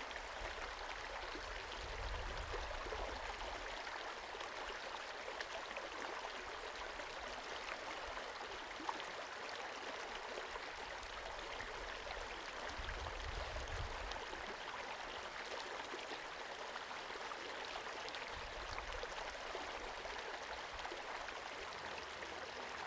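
A small forest creek flowing steadily, a continuous babble and trickle of water. A few brief low rumbles come and go beneath it.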